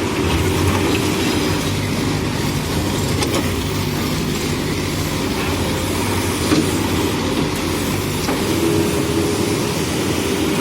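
JCB backhoe loader's diesel engine running steadily under working load, with one short knock about two-thirds of the way in.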